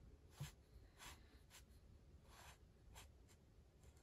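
Faint strokes of an alcohol marker's nib across sketchbook paper while colouring: about seven soft swishes, one a little longer near the middle.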